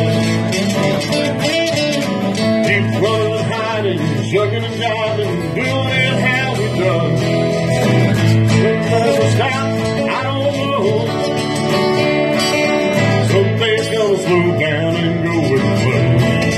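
Two acoustic guitars strummed and picked together in a live song.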